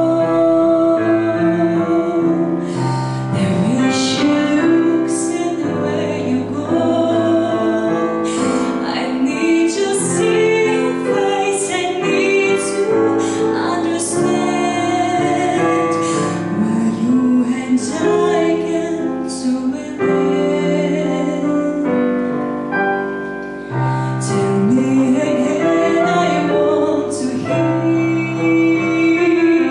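A woman singing a slow ballad into a microphone, accompanied by chords on a digital piano. The music dips briefly in loudness a little past the middle, then carries on.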